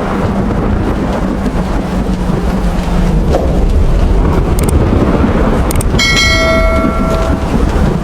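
Heavy rain with a deep storm rumble. About six seconds in, a bell strikes once and rings for over a second over the rain.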